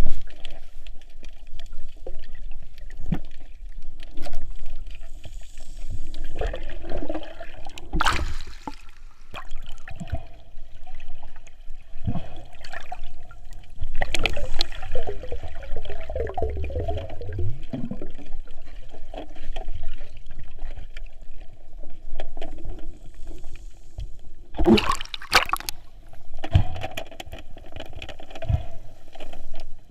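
Water sloshing and gurgling around a snorkeler's camera, with sudden louder rushes of water about 8, 14 and 25 seconds in.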